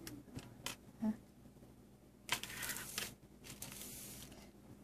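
Clear plastic zip-top bag crinkling in two short spells as small plastic medicine bottles are handled, after a few light clicks of the bottles in the first second.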